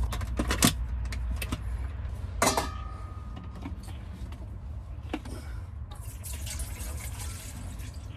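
Water being poured and splashing during cooking preparation, with a few knocks of cookware, one about two and a half seconds in that gives a short metallic ring.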